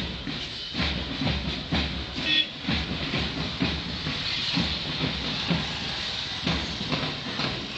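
Many marching feet striking the road in step, a steady beat about twice a second over a constant hiss of outdoor noise.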